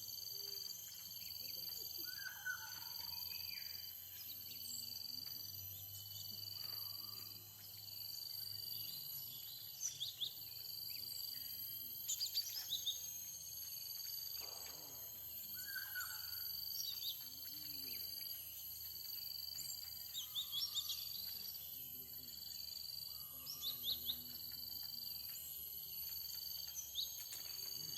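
Wild birds chirping with short, scattered high calls, over a thin high note that pulses about once a second throughout.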